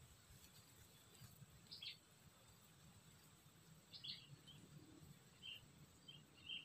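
Near silence outdoors, broken by a handful of faint, short bird chirps spaced a second or so apart.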